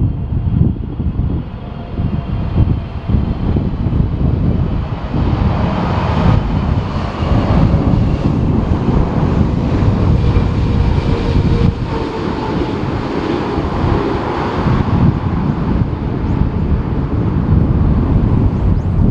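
Jet airliner's engines passing on a landing approach, the engine noise swelling to a peak midway and then easing off. Heavy gusting wind buffets the microphone throughout.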